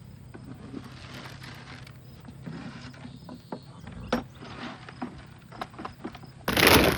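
Scattered knocks and clanks over a low steady hum, then a sudden loud rustling, crunching noise near the end.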